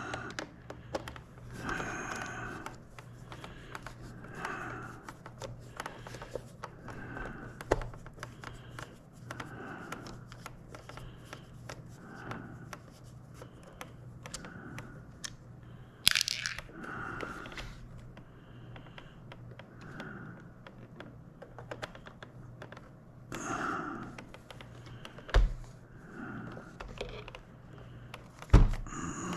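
Hands working on a plastic joystick housing during disassembly: short scraping, creaking sounds repeating about every second or so, with a few sharp knocks of plastic parts, the loudest about a second before the end.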